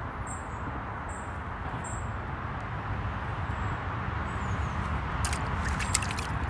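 A signal crayfish dropped back into a plastic bucket of water near the end: a quick cluster of splashes and clicks. Before that there is a steady low rumble, and small birds chirp high and briefly in the first half.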